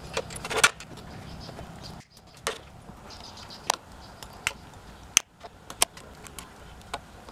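Pliers working safety wire at an aircraft disc brake caliper: a scattered series of short, sharp metallic clicks and ticks at irregular intervals.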